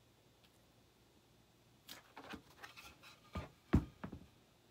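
Handling noise of a painted board egg cutout on a cutting mat. It is quiet for about two seconds, then come a few light taps and clicks, and a louder knock just before the board stands up on its edge.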